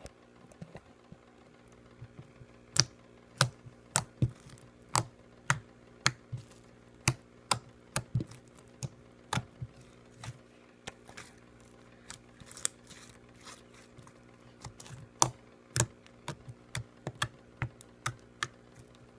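Slime being squeezed and worked by hand, giving sharp clicking pops at an irregular pace of about one or two a second.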